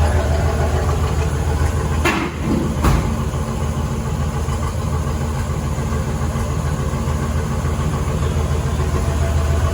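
Pontiac 400 V8 idling steadily, with two sharp clunks about two and three seconds in.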